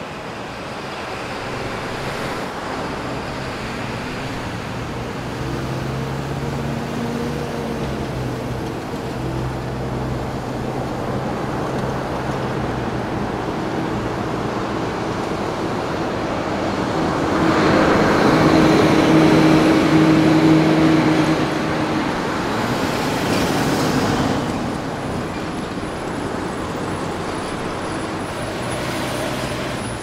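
Downtown city street traffic: a steady wash of engines and tyre noise with a low engine hum, swelling louder about 17 to 22 seconds in, with a smaller rise a little after.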